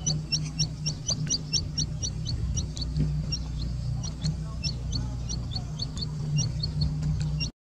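A chick peeping over and over: short, high, falling notes, several a second, over a steady low hum. The sound cuts out briefly near the end.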